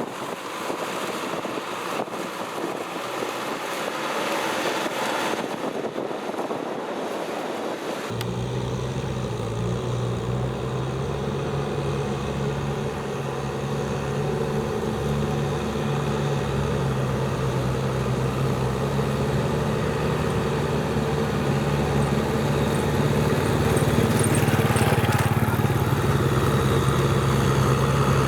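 Diesel tractor engine running at a steady pace. For the first several seconds there is only a hissy noise with no engine note. About eight seconds in, a steady engine drone comes in abruptly and grows gradually louder toward the end.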